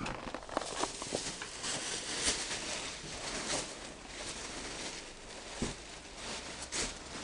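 Rustling and shuffling with many soft scattered clicks and scrapes: a handheld camera being handled while people move about on a tile floor.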